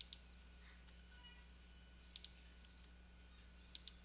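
Computer mouse clicking in quick pairs, three times about a second and a half apart, over a faint steady low hum.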